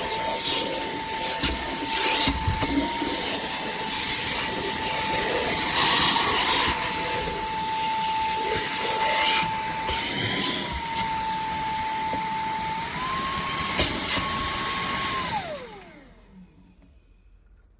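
TANYO cordless handheld vacuum cleaner running with a steady motor whine and rush of air. Its pitch steps up a little about thirteen seconds in, then it is switched off and winds down to quiet.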